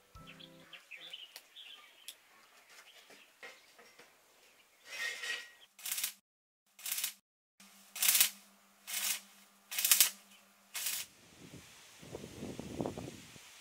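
Electric arc welding on a steel car frame: a string of short tack welds, about seven bursts of hissing a second or so apart, with a low hum between them. A low rustling noise follows near the end.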